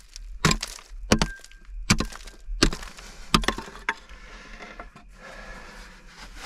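Steel pick striking a hard rock face, about six sharp blows roughly every 0.7 s, some with a brief metallic ring, breaking rock. A softer scraping, rattling noise follows for about two seconds.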